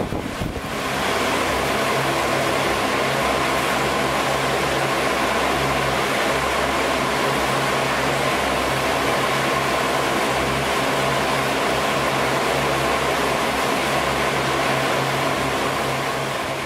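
A wall of electric fans running together: a steady rushing whir of air with a low motor hum and a fainter higher whine. For about the first second it is gustier, like air blowing across the microphone, then it settles to an even drone.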